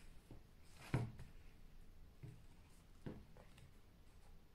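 A few soft knocks of sneakers being handled and set down on a wooden table: the loudest about a second in, another about three seconds in.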